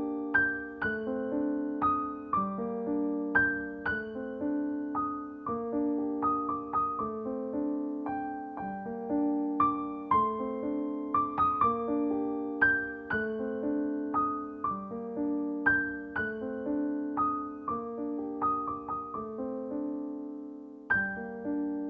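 Piano music: gently played notes over held chords in an even rhythm, with the same phrase coming round every few seconds.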